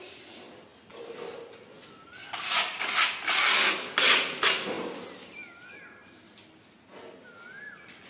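A rasping, scraping noise in a few loud strokes around the middle, with short high rising chirps now and then.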